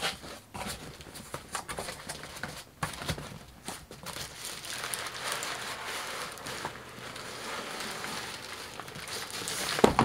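Cardboard shipping box being handled and its flaps opened, with scattered knocks and scrapes, then a steady crinkling rustle of plastic air-pillow packing being pulled out from about four seconds in.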